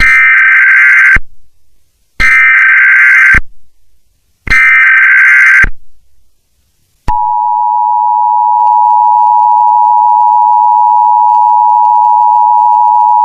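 Emergency Alert System tones: three SAME header data bursts, each a harsh electronic screech of about a second, spaced two seconds apart. Then, from about seven seconds in, the steady two-tone EAS attention signal, which marks that an alert message is about to be read.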